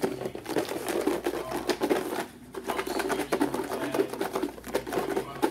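Plastic food-storage containers and lids clattering and knocking against each other as they are handled and stacked: a quick, uneven run of light clicks, with a short lull about two seconds in.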